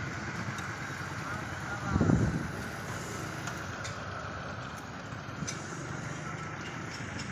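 Road traffic at a railway level crossing: a steady run of vehicle engines and general noise, with a brief, louder low rumble about two seconds in.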